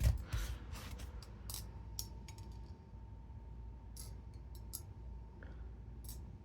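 Remshi Designs Kuno titanium balisong being flipped: its handles and blade clack and click irregularly as they swing around the pivots and meet, with the loudest clack right at the start.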